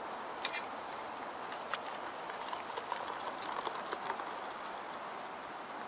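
Hot water poured from a small camping kettle into a mug to make coffee: a light trickle with faint ticking and bubbling in the middle of the pour, after a single sharp click about half a second in.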